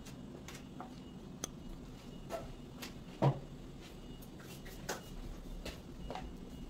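Quiet room sound with a low steady hum and about a dozen scattered light clicks and taps, and one louder dull knock about three seconds in.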